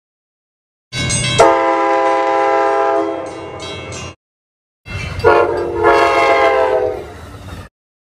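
Nathan K5LA multi-chime air horn on a Budd Metroliner cab car sounding two separate blasts, each under two seconds, over the rumble of the passing train. The first blast comes as the car passes at slow speed, the second at track speed.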